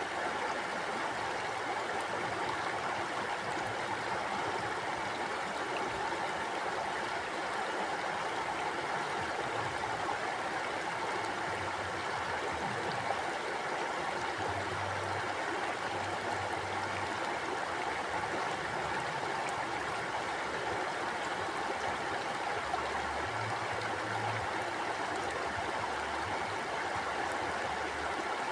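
River water flowing and rushing over rocks, a steady even rush with no breaks.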